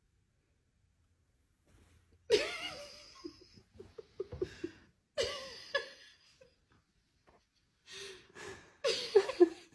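People laughing off camera in three bouts, starting after a couple of seconds of near silence.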